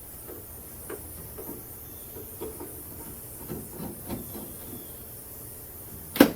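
Small scrapes and light clicks of hand tools working screws out of a car door, over a steady hiss, with one sharp, loud click near the end.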